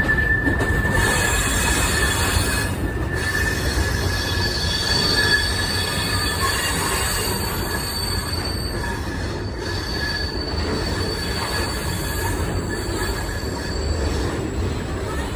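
Steel train wheels squealing against the rails as the passenger train rolls along, a steady high-pitched squeal over the low rumble of the moving car.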